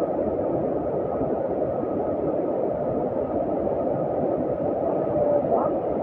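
Steady rushing of water from a whitewater river and a large waterfall: an even, unbroken noise with no change in level.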